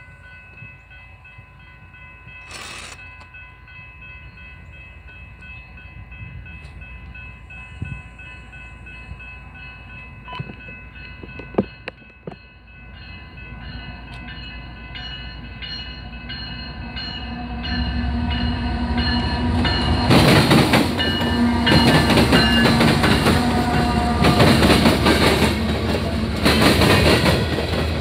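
A railroad grade-crossing bell rings steadily while a diesel-hauled freight train approaches, getting louder from about halfway. From about two-thirds through, the locomotive and a string of coal gondolas roll past close by, loud, with wheels clattering over the rail joints.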